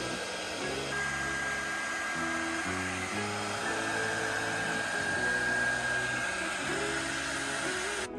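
Hand-held hair dryer blowing steadily while drying a Pomeranian's coat after a bath, with a thin steady whine in its rush of air. It cuts off abruptly near the end, over soft background music.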